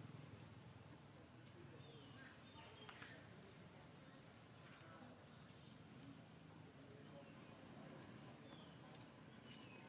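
Near silence: faint outdoor ambience with a steady high insect drone and a few faint, short downward chirps.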